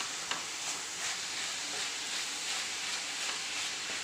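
Wooden spatula stirring and scraping a sticky grated-coconut and jaggery mixture around an aluminium pan, a stroke roughly every half second, over a steady sizzling hiss as the mixture cooks down and thickens.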